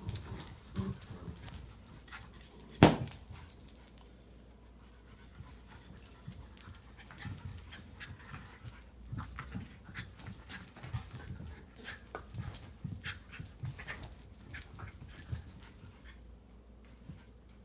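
Two dogs playing and wrestling over a leash, making short dog noises and scuffling sounds, with one sharp loud sound about three seconds in. The activity is busiest in the first few seconds and again through the middle, then dies down near the end.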